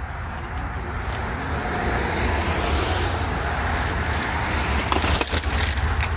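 A car passing on the road, its tyre and engine noise swelling over a few seconds, with a few light knocks near the end.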